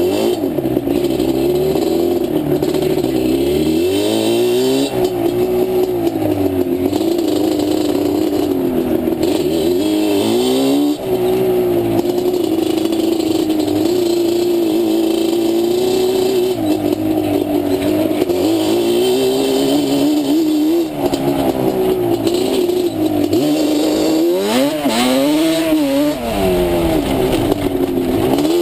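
Yamaha Banshee ATV's twin-cylinder two-stroke engine running under load on a trail ride, its pitch rising and falling constantly as the throttle is worked, with a sharp rev up and back down near the end.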